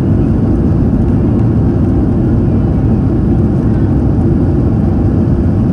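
Steady, loud low rumble inside the cabin of a Boeing 737-800 rolling along the runway after landing: its wheels on the runway and its CFM56-7B engines running.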